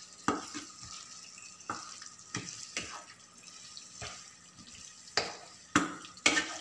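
A wooden spatula stirs chunks of beef liver in a nonstick kadai, knocking and scraping against the pan about seven times at irregular intervals. Under the strikes there is a faint steady sizzle of frying.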